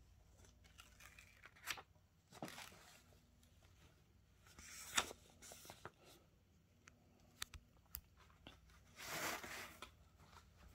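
Soft rustling and crinkling of a printed paper transfer sheet being handled and smoothed by hand on a cotton t-shirt, in a few short scattered bursts, the loudest about five seconds in and again around nine to ten seconds.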